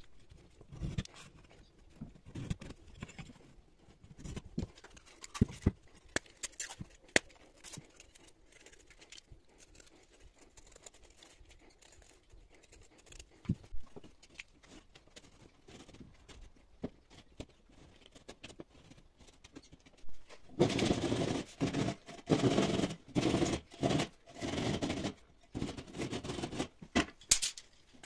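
Utility knife working on plasterboard (drywall): scattered light taps and clicks of tools being handled, then, about three-quarters of the way in, a run of loud, short scraping strokes as the blade cuts into the board.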